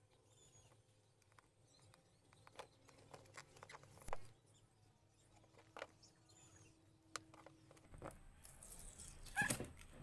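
Faint scratching and scattered clicks of fingers picking at a cardboard box's seal to open it, with louder rustling and scraping of the box handled near the end.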